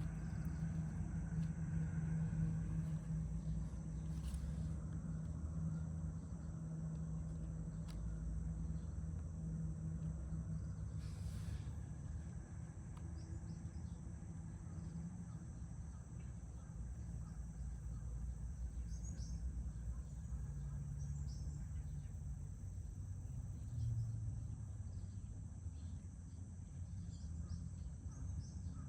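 Outdoor ambience: a steady low hum with a continuous high-pitched insect trill over it, and a few short, faint bird chirps from about twenty seconds in.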